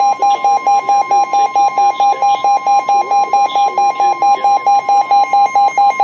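NOAA Weather Radio warning alarm tone, a steady high tone, with a fast pulsing beep of about five beeps a second layered over it: the alert signal that comes before a National Weather Service warning message.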